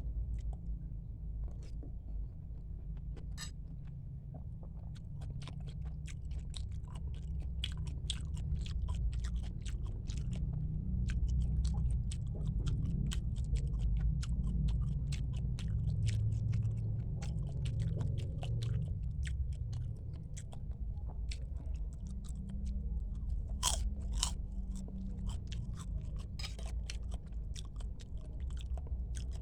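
Close-miked chewing of a person eating bakso, Indonesian meatball soup: steady mouth sounds with many small clicks and a few sharper ones.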